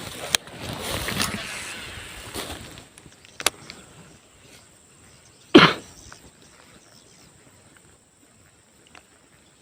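A single loud human cough about halfway through, following a couple of seconds of rushing noise and a few clicks at the start.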